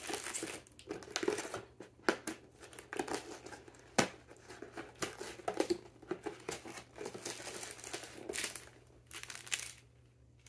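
Cardboard calendar doors and small plastic bags of craft pieces handled, crinkled and rustled by hand, in irregular crackles with a sharp snap about four seconds in.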